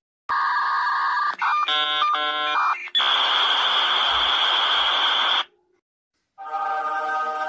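A string of edited electronic sound effects: a steady buzzing tone, a quick run of changing electronic chords, about two and a half seconds of loud static-like hiss with a high whine through it, a short silence, then a held chord of several tones that begins near the end.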